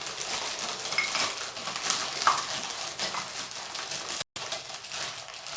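Small clay pieces of a miniature kitchen set clinking and scraping as they are handled, the stone of a miniature clay grinder being taken out of its bowl, with a few light ringing knocks. The sound cuts out for a moment about four seconds in.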